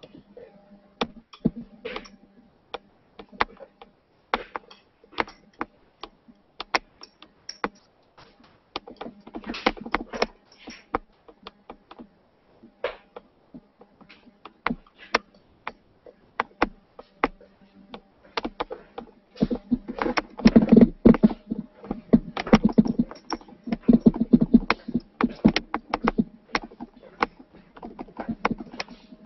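Irregular clicks and knocks of handling noise on a computer's microphone as the computer is carried and moved about. They come thicker and louder around nine seconds in and again from about twenty to twenty-six seconds in.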